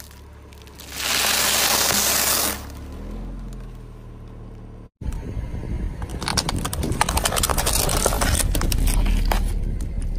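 A car tyre rolling over a row of plastic dome-lid cups filled with coloured foam, crushing them in a dense run of cracks and crackles that lasts several seconds in the second half, over the car's low rumble. Early on, a short, loud burst of crunching noise comes from the tyre on the flattened cereal box.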